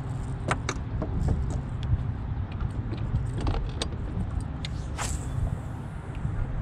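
Spinning rod being cast and its reel cranked: scattered light clicks and ticks, with a brief hiss about five seconds in, over a steady low rumble.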